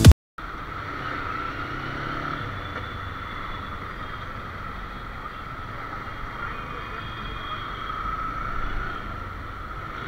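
Steady motorcycle ride noise picked up by a handlebar-mounted action camera: the engine running at low speed under wind and road noise, with no sudden events.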